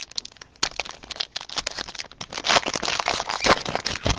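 Plastic wrapping on trading-card packaging crinkling as it is handled and opened. It is a dense run of small crackles that gets louder in the second half.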